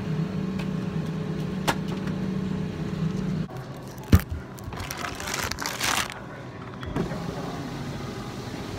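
A steady low hum with a light rattle for the first three and a half seconds. About four seconds in comes a single sharp knock, then a second or so of plastic produce bag rustling as groceries are handled.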